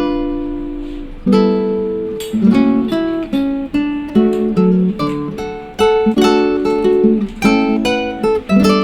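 Background music: acoustic guitar plucking and strumming chords, each note struck sharply and fading away.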